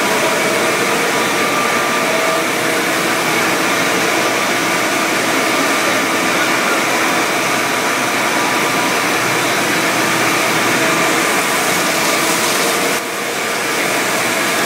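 Twin-screw corn ring snack extrusion line running: a steady, loud machine noise with a few faint steady hums, dropping briefly about thirteen seconds in before coming back.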